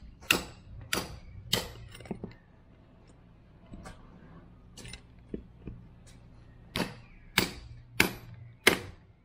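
Club hammer striking a steel chisel to chip out the mortar bed under lifted paving slabs. Sharp metallic blows: four in quick succession, a pause with a few light taps, then four more, each about two thirds of a second apart.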